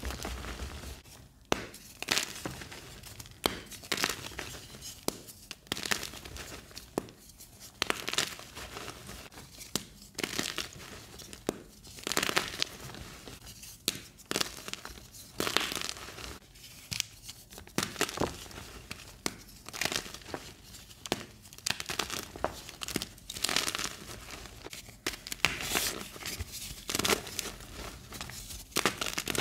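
Soft blocks of gym chalk crunching and crumbling as fingers squeeze and break them apart. The sound is an irregular run of dry crackles and short crunches, some sharper and louder than others.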